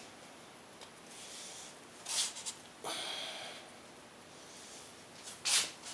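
Short forced breaths and hands scuffing and gripping on an MGB engine block while the crankshaft is strained round by hand; the loudest puffs come about two seconds in and near the end.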